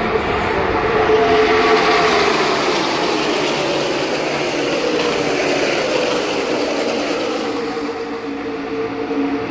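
A field of NASCAR Cup stock cars with V8 engines running past the grandstand. Several engine notes slide down in pitch as the cars go by. It is loudest a second or two in.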